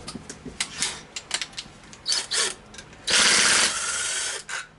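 Small metal clicks of tools working on the engine, then, about three seconds in, a handheld power tool runs for about a second and a half, backing out the bolts that hold the ignition coil on a Tillotson 212cc engine.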